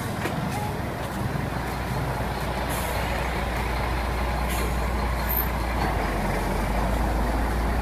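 Street traffic noise: a steady low engine rumble, like a motor vehicle idling close by, under a rough wash of road noise.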